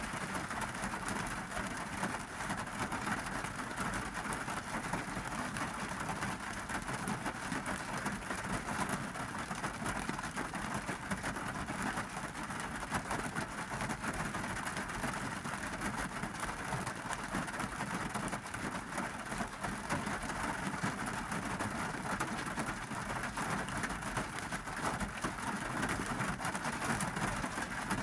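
Monsoon-season rain falling steadily on a car's roof and glass, heard from inside the car as a dense patter of drops.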